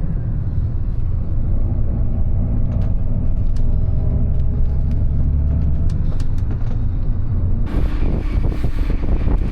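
Inside a moving Flixbus coach: a steady low rumble of engine and road noise, with a few light clicks and rattles. About eight seconds in, a loud hiss of strong wind buffeting the microphone takes over.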